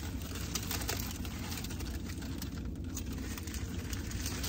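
Light crinkling of paper sandwich wrapping and small clicks of food being handled, heard mostly in the first second, over a steady low hum inside the car.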